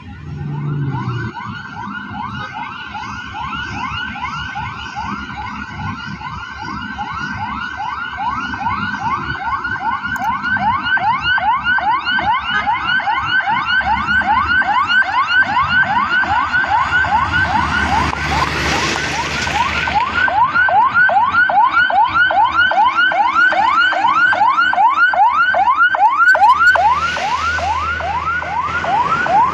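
A fast, repeating siren-like tone, rising in pitch about three times a second, over a low, rapid rumble of heavy machinery; it grows louder over time. Two bursts of hiss come through, one past the middle and one near the end.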